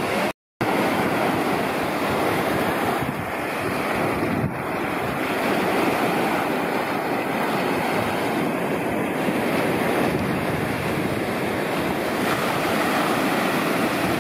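Small ocean waves washing onto the beach, with wind rumbling on the microphone; the sound cuts out completely for a moment about half a second in.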